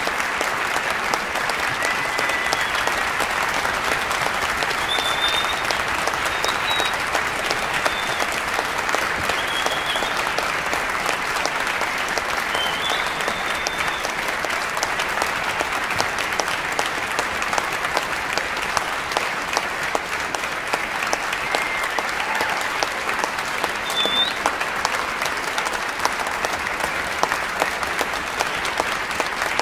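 Large audience applauding steadily in a concert hall.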